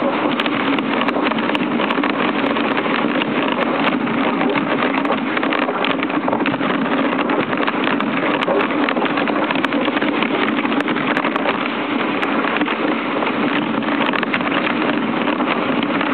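Dog sled gliding over a packed snow trail behind a running husky team: a steady rushing noise of the runners on snow and air moving past, with light clicks scattered through it.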